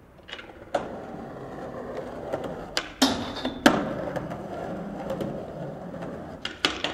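Skateboard wheels rolling along a concrete ledge with a steady rolling noise. Sharp clacks of the board are heard near the start, a loud clack with a short scrape about three seconds in, and more clacks near the end.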